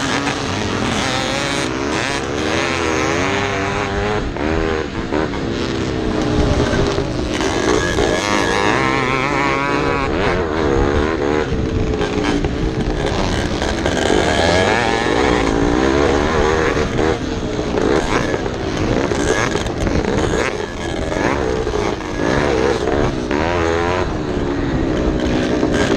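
Vintage racing motorcycle engine revving hard, its pitch rising and falling again and again as the throttle opens and closes.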